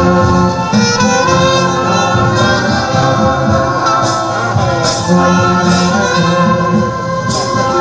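Music with singing over held instrumental chords, and a light percussion tap about once a second in the second half.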